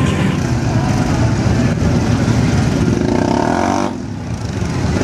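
Loud, steady truck engine noise, with a rising rev about three seconds in, falling quieter about four seconds in.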